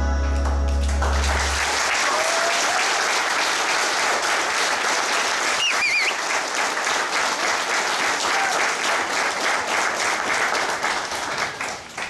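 Audience applauding as the song's music ends in the first second or so. The clapping runs for about ten seconds, with a brief high wavering whistle about halfway through, and dies away just before the end.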